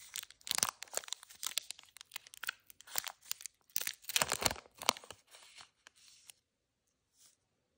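Silver foil wrapper of a Topps T206 trading-card pack being torn open and crinkled, a dense run of sharp crackles, then softer rustling as the cards are slid out; it stops about six seconds in.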